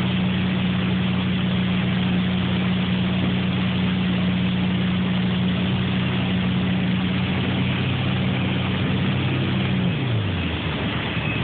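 Motorboat engine running steadily at towing speed over a constant rush of wind and water. About ten seconds in, the engine note drops as the boat slows.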